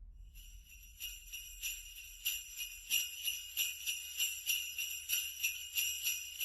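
Jingle bells shaken in a steady rhythm, about three shakes a second. They start softly and settle into the even beat about a second in.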